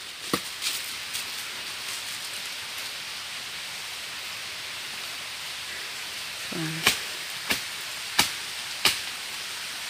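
Four sharp chops about two-thirds of a second apart near the end, a machete being swung into stems and wood, over a steady high hiss.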